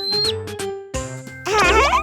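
Bright children's song backing music with short plucked notes, a high whistling tone that glides up and holds at the start, and a wobbling sound effect that warbles upward in the last half second.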